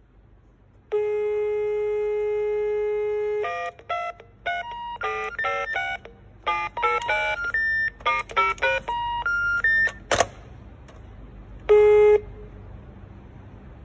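Telephone line tones heard from a Microtel analog telephone under test: a steady dial tone for about two and a half seconds, then a quick string of short keypad (DTMF) beeps as a number is dialled, a sharp click, and near the end one short beep at the dial tone's pitch.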